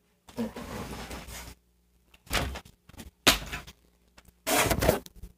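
A person moving about a small room: a rustle lasting about a second, then a few separate knocks and bumps, with a cluster of them near the end.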